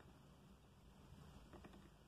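Near silence: faint room tone with a low hum and a few faint small ticks about one and a half seconds in.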